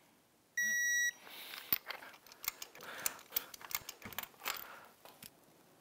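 Digital torque wrench giving one beep of about half a second as a spark plug is tightened, the signal that the set torque has been reached. Light clicks and rattles of the wrench, socket and spark plug lead being handled follow.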